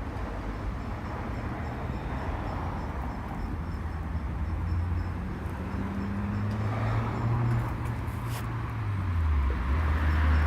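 A vehicle engine running outdoors, its low hum shifting in pitch a few times, over a steady background of outdoor noise.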